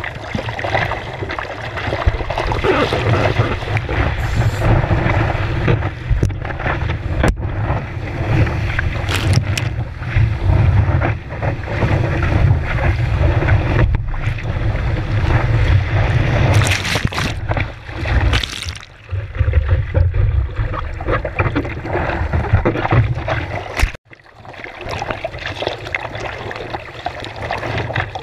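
Water rushing and splashing past a surfboard-mounted action camera as the board moves through the surf, with heavy wind buffeting on the microphone. The rush drops out suddenly for a moment near the end.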